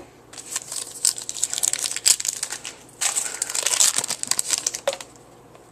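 Foil wrapper of a trading card pack crinkling as it is torn open and handled, in two stretches of a couple of seconds each.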